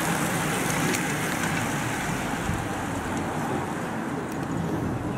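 Steady road and engine noise of a car driving along with the race, heard from on board, with wind hiss over it.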